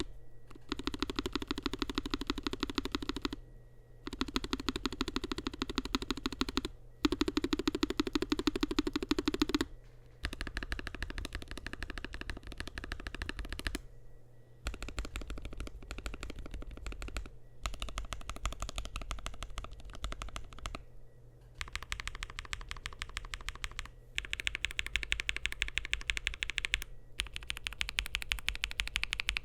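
Fast typing on a Lofree Flow mechanical keyboard with Kailh Ghost linear switches, PBT keycaps and a gasket-mounted FR4/PC plate. It comes as rapid strings of key clacks lasting a few seconds each, with brief pauses between them. The first few strings have a deeper clack than the later ones.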